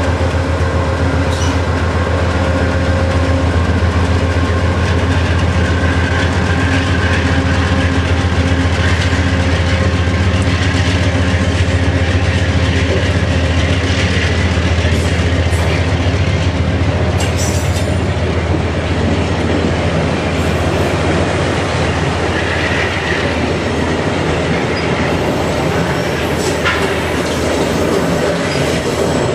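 VIA Rail passenger train rolling past close by, with a loud, steady low drone and occasional wheel clicks over the rail joints.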